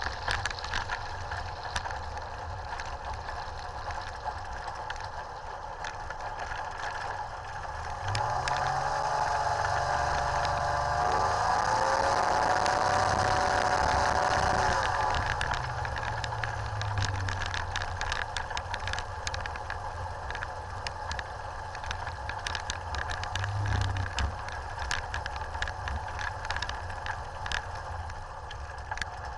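Rotax 582 two-stroke engine of a Chinook ultralight running at low power while the aircraft taxis. About eight seconds in, the throttle is opened and the engine note rises and grows louder for several seconds, then drops back to a low idle. Light rattles run throughout.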